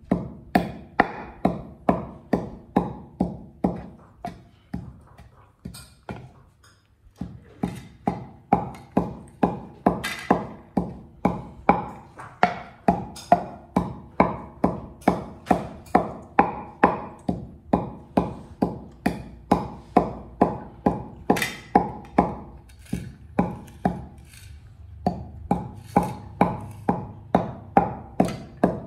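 Wooden pestle pounding in a wooden mortar, a steady rhythm of hollow knocks about two a second, each ringing briefly, with a short pause about six seconds in.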